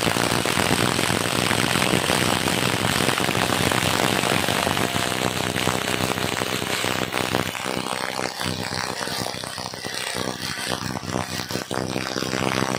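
Two cordless impact drivers, an NRT Pro and a Total, hammering as they drive long lag screws into a wooden stump: a loud, rapid impact rattle that thins somewhat after about eight seconds.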